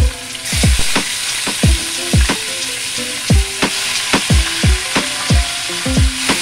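Fish frying in hot oil in a pan: a steady sizzle that gets louder about half a second in as more fish goes in. Background music with a regular bass beat plays over it.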